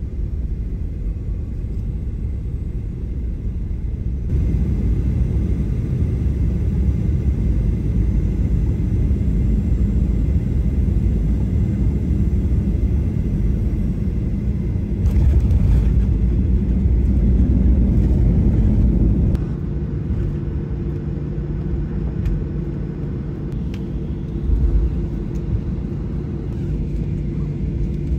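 Cabin noise of a Boeing 737 landing: a steady low rumble of engines and airflow. It grows louder a few seconds in and louder still for a few seconds during the runway rollout, then drops suddenly to a steadier, quieter engine hum as the jet slows and taxis.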